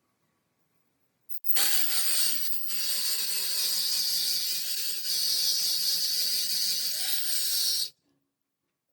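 Electric power tool grinding metal: a steady motor hum under a loud, hissing grind that starts suddenly about a second and a half in and cuts off sharply about six seconds later.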